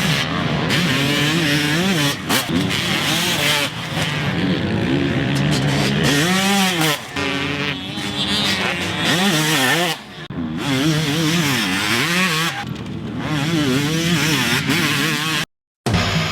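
A 2006 Kawasaki KX250 two-stroke engine revving, its pitch climbing and dropping again and again. The sound cuts off abruptly near the end.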